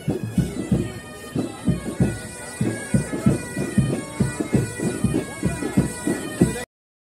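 Background music: held reedy tones over a quick, steady drum beat of about three to four strikes a second. It cuts out briefly near the end.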